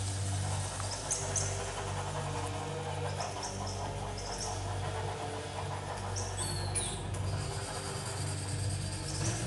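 Electronic show soundtrack over the sound system: a steady low drone with short, high, falling chirps, bird- or squeak-like, that come in clusters every second or two.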